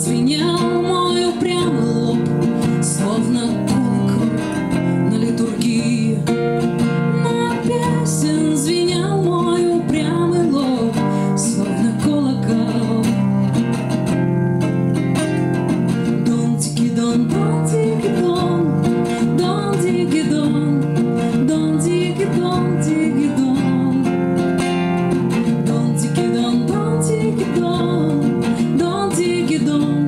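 A woman singing a Russian bard song to her own acoustic guitar accompaniment.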